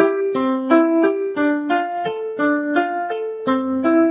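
Background music: a piano-like keyboard playing a simple, even tune of short notes, about three a second.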